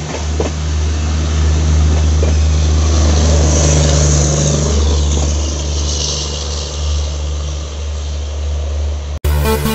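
Passenger train of LHB coaches rolling past at low speed: a steady low rumble with wheel and track noise, and a few sharp clicks in the first couple of seconds. The rumble eases slightly as the last coach draws away. A hard cut to electronic music comes just before the end.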